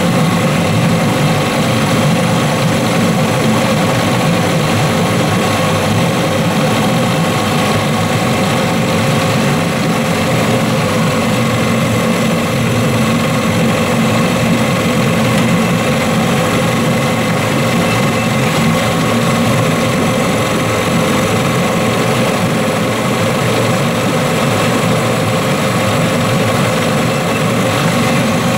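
Johnson 15 hp outboard engine running steadily at idle on the test stand, an even drone that holds the same pitch without revving.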